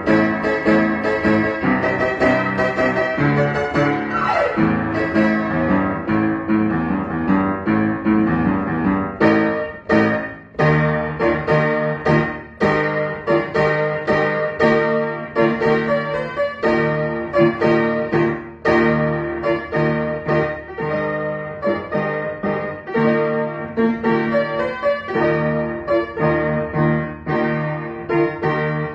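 Upright piano played solo, a pop tune with chords under a melody. It rings in full sustained chords for the first several seconds, then moves to more separate, struck chords and notes.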